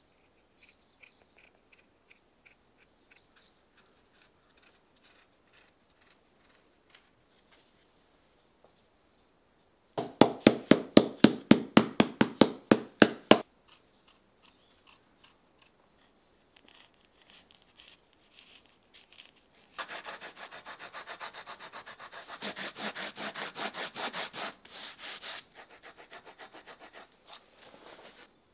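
A rasp worked back and forth over the leather sole of a handmade boot, in quick rough strokes of about four or five a second. A short loud run comes about ten seconds in and a longer, faster run about twenty seconds in, trailing off softer near the end; faint small ticks of knife trimming come before.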